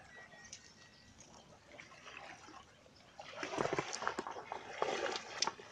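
Someone wading through shallow muddy water: light splashes and sloshing, with a louder run of splashing steps from about three seconds in.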